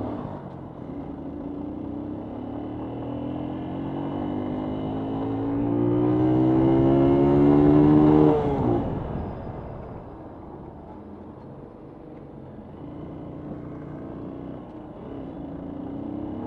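Motorcycle engine accelerating, its pitch climbing steadily and growing louder for about eight seconds. Then the throttle shuts suddenly, and the engine drops back to a lower, quieter running note.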